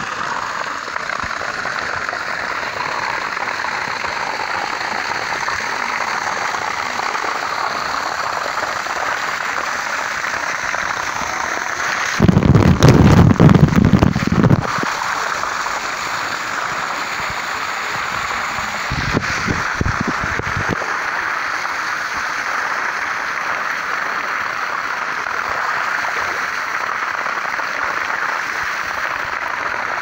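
Water gushing steadily from a pipe spout and splashing onto rock and a bather, a constant rushing hiss. About twelve seconds in, a loud low buffeting lasts for two seconds, with a shorter, weaker one about seven seconds later.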